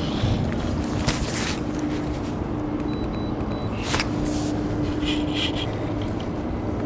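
Steady hum of a boat motor running at constant speed, with a couple of sharp clicks about a second in and again about four seconds in.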